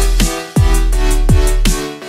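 Electronic dance music with a heavy bass line: deep bass hits that drop in pitch come every half second or so over a sustained sub-bass, with bright ticking cymbals on top.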